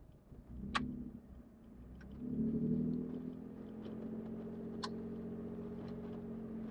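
Truck engine running, swelling briefly about two seconds in as it speeds up, then holding a steady hum, with a few sharp clicks.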